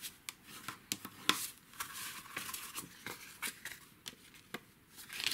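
Cardstock being handled and creased by hand: irregular paper scrapes and rustles with scattered light taps.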